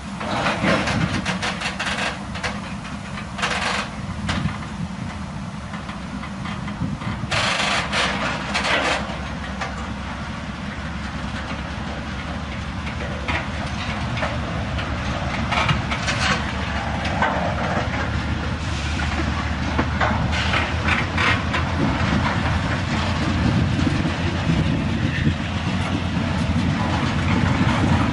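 Freight train of covered hopper cars rolling past, a steady rumble of wheels on rail with scattered clusters of sharp clacks and knocks as the wheels pass over the track. It grows a little louder toward the end.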